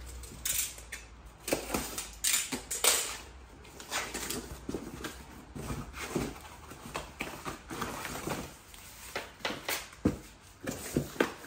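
Cardboard rustling and scraping as the flaps of a long flat box are opened, with irregular clicks and knocks as the plastic-wrapped wall-mount rails for a Samsung The Frame TV are handled and lifted out. The sharpest knock comes about ten seconds in.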